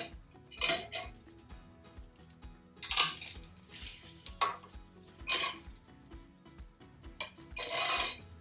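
A utensil scraping and clinking against a baking sheet in a series of short strokes as roasted vegetables are lifted off it, with background music that has a steady beat underneath.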